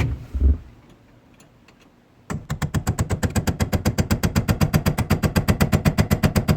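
A hammer rapidly tapping a steel pin punch to drive out the seized pin holding a 1965 Ford Thunderbird's column shifter lever, about ten metal-on-metal strikes a second, starting about two seconds in after a single thump. The pin is not moving.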